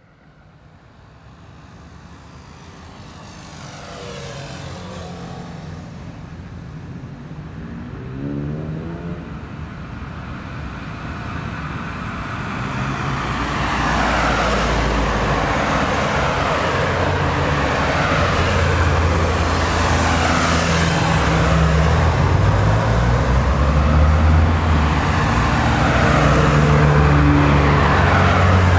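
Road traffic fading in from silence and building up over the first half: cars passing and engines running, with engine notes sliding up and down in pitch as vehicles go by.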